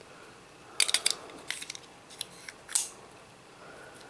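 Metallic clicks and clacks from the action of a Hi-Standard Model GB .22 pistol as it is handled: a quick cluster of sharp clicks about a second in, then a few more spaced single clicks over the next two seconds.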